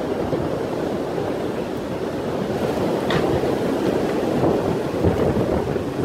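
Canadian National container freight train rolling past with a steady rumble, heavily mixed with strong wind buffeting the microphone.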